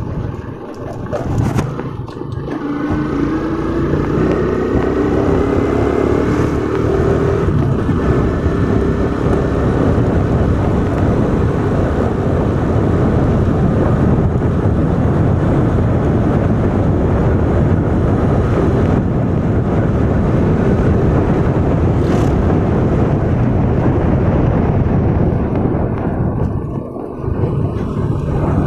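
Motorcycle riding along a road: the engine's pitch rises as it accelerates in the first few seconds, then it runs steadily under heavy wind rush on the microphone, with a brief drop in level near the end.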